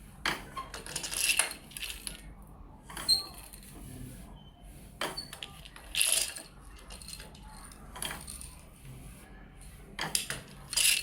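Irregular clinking and knocking, with louder bright jingling clusters about a second in, around six seconds in and near the end.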